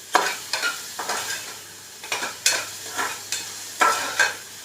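Spatula stirring onions, ginger and garlic frying in oil in a hot pan: a run of irregular scraping strokes, two or three a second, over a steady sizzle.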